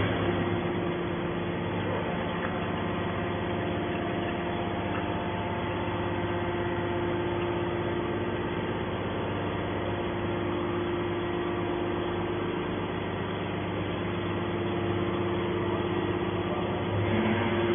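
Hydraulic power unit of a TCM MQ160 scrap metal baler running with a steady hum.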